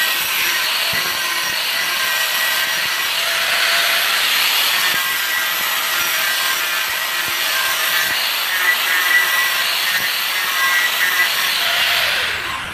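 Electric angle grinder with a thin cut-off disc cutting through a steel sickle blade: a steady, loud, high-pitched grinding hiss with a faint whine in it. Near the end the disc is lifted off the metal and the sound falls away as it spins down.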